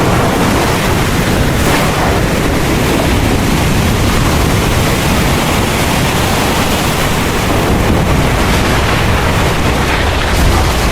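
Heavy rain pouring steadily, with a deep rumble of thunder underneath that swells near the end.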